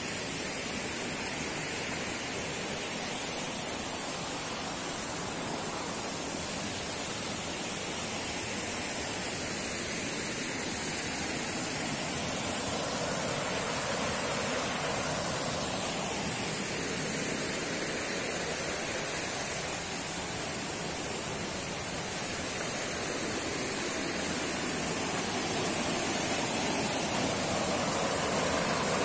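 Forest stream rushing and splashing over rocks in small cascades, a steady, even water noise that grows a little louder near the end. A steady high-pitched hiss sits above it.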